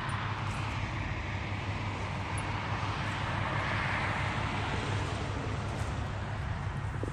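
Highway traffic going by: a steady rush of passing vehicles that swells as a car passes about four seconds in.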